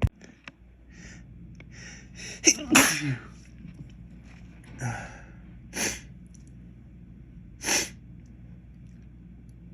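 A man sneezing from inhaled white pepper: a few short breaths in, then one loud sneeze about two and a half seconds in, followed by three shorter, sharp sneezes.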